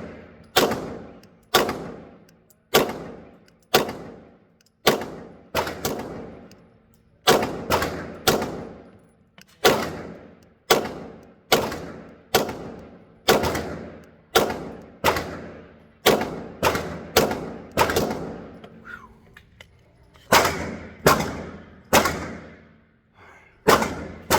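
Glock 47X 9mm pistol firing a long string of shots at a steady pace, about one a second, each with a short echoing tail.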